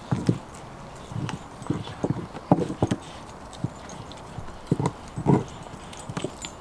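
A Belgian Malinois chewing and gnawing a raw beef rib: irregular crunches and knocks at uneven spacing, the loudest about two and a half seconds in and again a little after five seconds.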